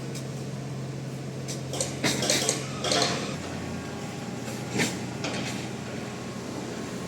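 Heavy construction machinery engine running steadily, with a run of sharp metallic clinks and clanks about two to three seconds in and one more near five seconds in.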